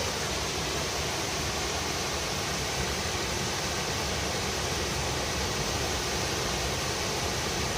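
Waterfall crashing steadily into its plunge pool, a constant, even rush of falling water.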